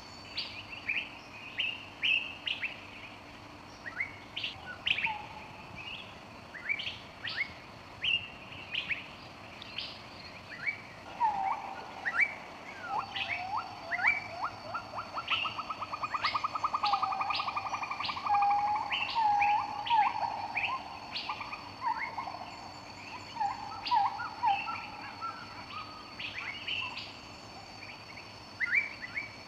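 Birds calling: short, sharp chirps repeating throughout, with a fast run of lower trilling notes in the middle and a faint steady high tone underneath.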